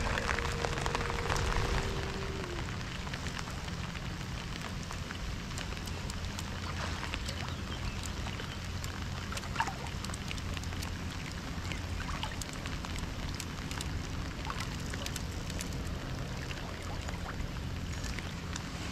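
Heavy rain falling steadily, with many separate drops ticking close by, over a steady low hum.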